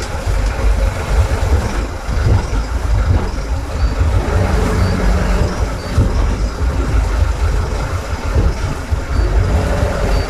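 Twin engines of a motor yacht running at slow manoeuvring speed, a steady low rumble under a noisy haze.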